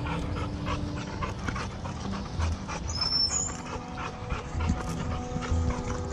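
Panting close by, with footsteps on a dirt trail and a short high chirp about three seconds in.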